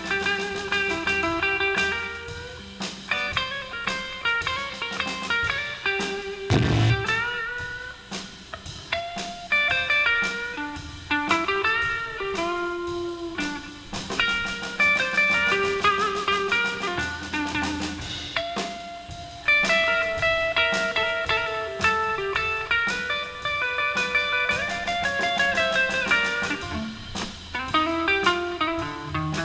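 Blues band playing an instrumental break: a lead guitar solo with bent notes over drums and a steady bass line.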